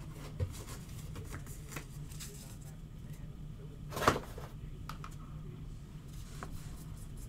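Baseball trading cards being handled, shuffled and stacked on a table: light rustles and small clicks, with one brief, louder burst of handling noise about four seconds in, over a steady low hum.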